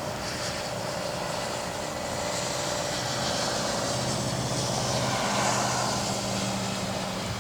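A vehicle passing on a wet road, heard from inside a parked car: a swelling hiss with a low engine hum that peaks about five seconds in and then eases off. A faint steady tone fades out about a second in.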